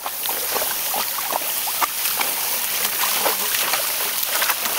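Garden hose spray nozzle hissing steadily into a plastic kiddie pool, with irregular splashing as a chocolate Labrador bites and paws at the spray.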